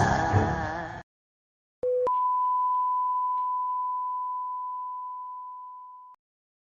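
Sound-effect clips played in turn. A sung music snippet fades out in the first second. After a short gap comes a brief lower electronic beep, then one long steady electronic beep tone that slowly fades over about four seconds and stops abruptly.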